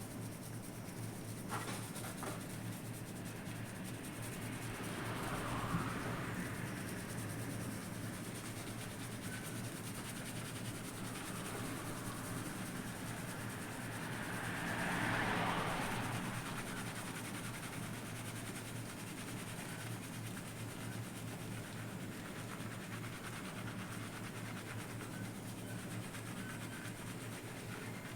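Fingers scrubbing and massaging a lathered scalp during a shampoo: a soft rubbing of foam and wet hair that swells about five seconds in and again around fifteen seconds in, over a steady low hum.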